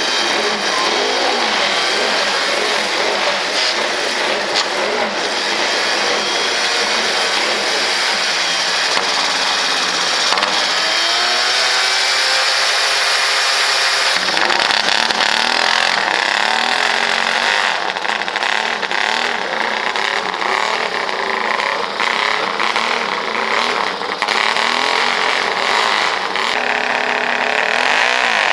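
Motorcycle engines running and revving, their pitch rising and falling again and again, with one longer climb in revs near the middle that cuts off sharply.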